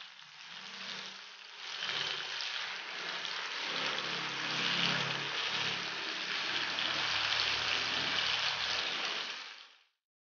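Tilapia pieces sizzling as they shallow-fry in coconut oil over curry leaves on a low flame, while they are turned over with a fork and spatula. The sizzle grows louder about two seconds in, holds steady, then cuts off abruptly near the end.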